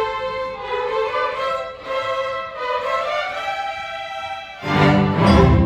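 Youth orchestra playing, with violins carrying a sustained melody line. About four and a half seconds in, the full orchestra comes in on a louder final chord with strong low notes.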